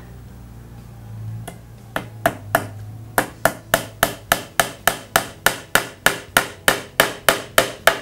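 Pin hammer driving a pin into a pine batten: a few spaced taps, then a quick steady run of about three strikes a second.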